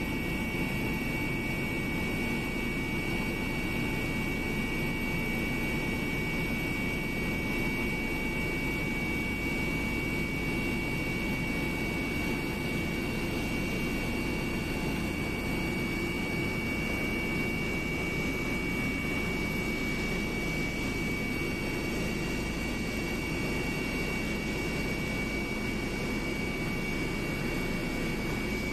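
Airliner engines heard from inside the passenger cabin in flight: a steady drone with an even, high-pitched whine over it.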